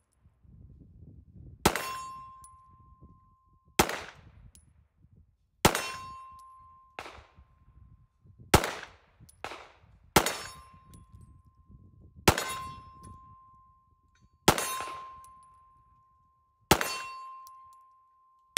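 Sig P320 X5 Legion 9mm pistol fired eight slow, deliberate shots, about one every two seconds, at steel targets. Most shots are followed by a struck steel plate ringing with a steady tone that fades before the next shot.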